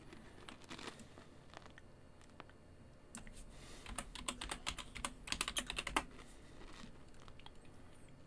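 Typing on a computer keyboard: a few scattered keystrokes, then a quick run of them around the middle.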